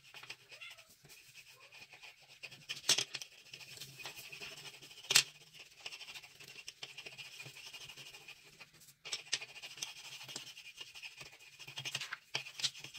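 Wax crayons scribbling on paper, a continual dry scratching and rubbing, broken by a few sharp clicks, the loudest about five seconds in.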